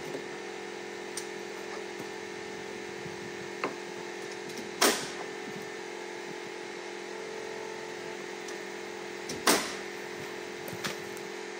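Sharp strikes of nails being driven into wooden siding boards: two loud ones about five seconds apart and a few lighter taps. Under them runs a steady engine-like hum.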